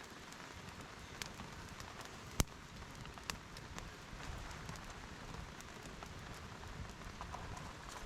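Rain falling steadily, with scattered drops ticking and one sharper click about two and a half seconds in.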